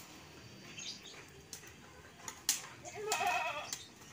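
An animal bleating once, a wavering call about three seconds in. A few sharp knocks come before it.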